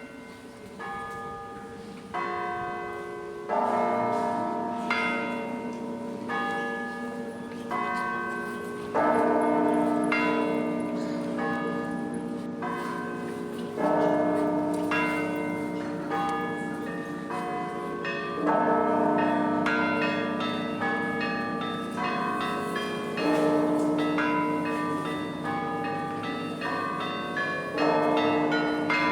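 Russian Orthodox church bells of St Sophia Cathedral ringing. A large bell is struck about every four to five seconds, and smaller bells chime quick patterns in between.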